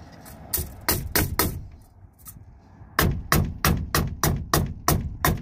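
Claw hammer striking a metal piano hinge lying on a wooden board: a few separate blows, a short pause, then quick, even strikes about four a second from about three seconds in.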